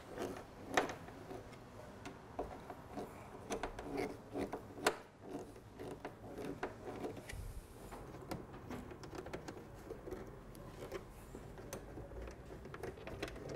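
Faint, irregular clicks and taps of a screwdriver turning screws and washers into an electric scooter's plastic battery cover and body panels, with the sharpest clicks about a second in and near the middle.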